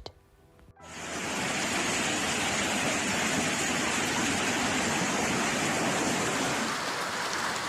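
Steady rushing noise of storm water, fading in just under a second in and holding even.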